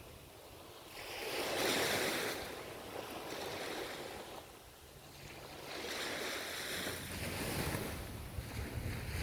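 Ocean surf: waves breaking and washing up the shore, swelling twice, once about two seconds in and again a few seconds later, with quieter lulls between.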